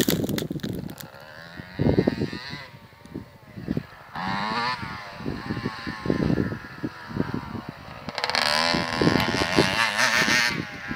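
Motocross bike engine revving in uneven bursts, its pitch wavering up and down, with the longest and loudest run of revs near the end.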